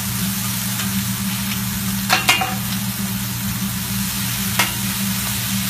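Food sizzling on a hot teppanyaki griddle, a steady hiss, with metal spatulas clicking against the plate twice about two seconds in and once more near the end.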